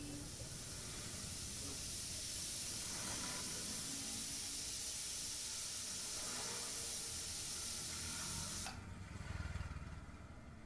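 Steady high-pitched hiss that cuts off suddenly about nine seconds in, followed by fainter low background noise.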